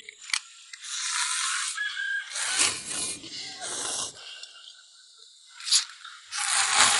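A person slurping instant noodles from a bowl in several drawn-out, hissing slurps.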